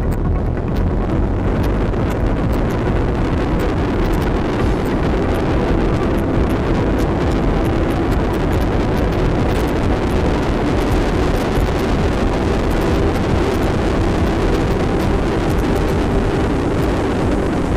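BMW R1200RT boxer-twin motorcycle running steadily at road speed, heard on board the bike, mixed with constant wind rush on the microphone.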